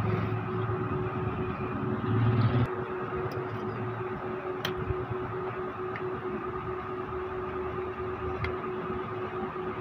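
A steady hum with background noise, the low rumble dropping away a little under three seconds in, and a few faint clicks.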